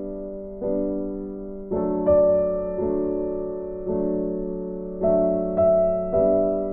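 Background music: gentle piano or electric-piano chords, one struck about every second and left to fade.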